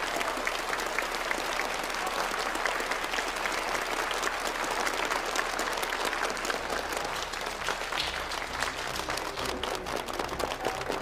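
A large theatre audience applauding, a dense, steady clatter of many hands clapping.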